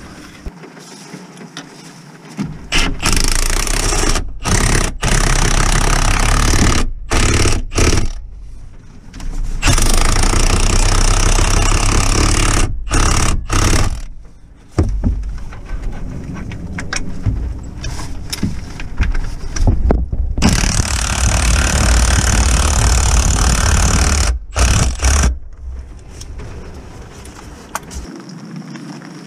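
Power tool run in repeated bursts of a few seconds each, cutting off sharply between them, on the gearbox mounting bolts of a car.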